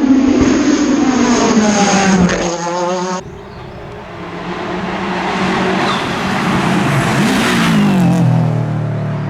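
Race car engines on a hillclimb course, two passes joined by an edit. The first car is loud and revving hard with changing pitch and cuts off abruptly about three seconds in. A second car then approaches, growing louder, and its engine note falls steadily near the end as it slows or passes.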